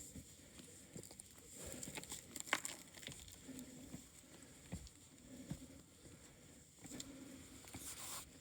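Faint, irregular rustling and soft steps of a hiker moving on foot, with scattered clicks, the sharpest about two and a half seconds in.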